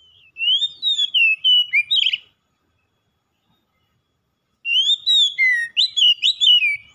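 Oriental magpie-robin singing: two bursts of varied, clear whistled phrases full of quick rising and falling slurs, separated by a pause of about two seconds.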